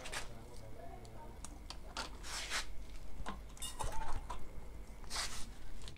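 Quiet handling noises from plastic printer parts: scattered light clicks and a few short rustles over a steady low hum.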